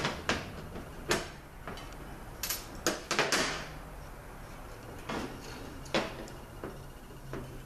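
Irregular small clicks and knocks of pliers and metal parts being handled on a 5L40E transmission valve body, about a dozen scattered taps, over a faint steady low hum.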